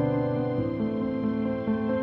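Calm instrumental background music with held notes that change pitch about every half second.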